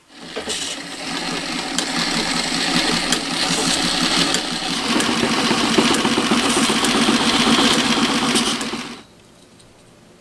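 Vintage Singer Model 27 sewing machine running at speed with a fast, steady clatter, growing a little louder, then stopping abruptly about nine seconds in.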